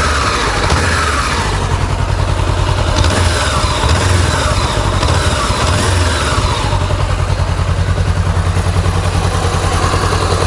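Honda CBR400R motorcycle's parallel-twin engine running at idle.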